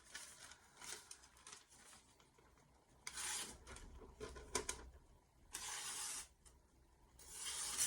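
Stainless steel kitchen knife slicing through a sheet of paper to test the edge: three main dry rasping strokes with fainter ones before them. The sharpener takes the sound for a bit of burr still on the edge, or for creases in the paper.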